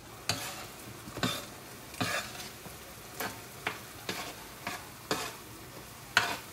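Metal spoon stirring chicken pieces in a thick, sticky honey garlic sauce in a nonstick skillet: about ten short scrapes and clacks of the spoon against the pan at irregular intervals, the loudest about six seconds in. Under them the pan sizzles faintly on low heat.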